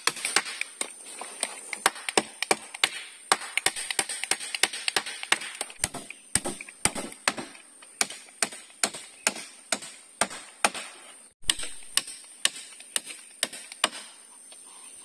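Hammer striking the wooden poles of a frame being built in the water: quick, sharp taps at about three a second, with a brief break about eleven seconds in.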